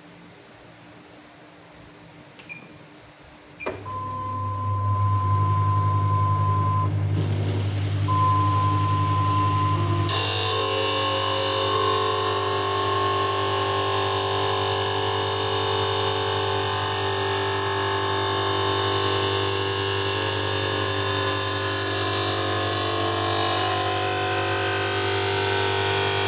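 Supore LE-520 automatic lens edger starting its cycle: two short beeps and a click, then the motor starts with a steady hum and a high whine, a hiss comes in about seven seconds in, and from about ten seconds the grinding wheel cuts the spectacle lens under the water jets, a loud steady whirring grind with ringing tones.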